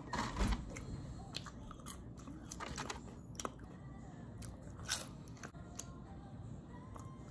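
A person biting and chewing a crunchy salad topped with fried chicken pieces, in irregular crunches. The loudest crunches come about half a second in and again around five seconds in.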